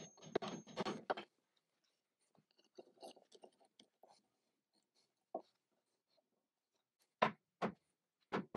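Steel chisel paring the shoulder of a pecan tenon: rapid scraping strokes in the first second, then fainter, scattered scraping. A few sharp knocks near the end.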